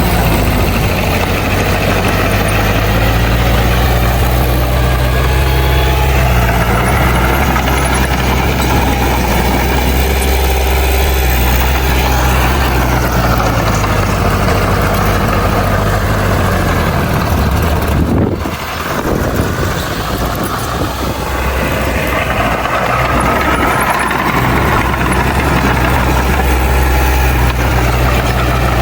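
Heavy diesel engine of earthmoving machinery running steadily with a deep low drone. The level drops briefly about two-thirds of the way through, then picks up again.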